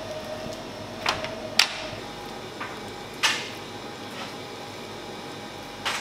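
Kitchen clatter: four sharp knocks and clinks of utensils or cookware, one to two seconds apart, over steady background noise with a faint hum that stops about two seconds in.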